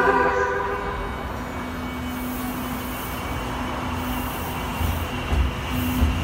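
Subway train pulling slowly into an underground platform: steady running noise with a low, even hum, and a few heavier low thuds near the end as the front passes close by.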